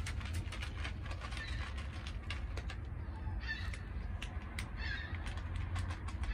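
Cats crunching dry kibble from an aluminium foil tray, a run of quick sharp clicks and crunches. A bird calls twice in the background, about three and a half and five seconds in, over a low steady rumble.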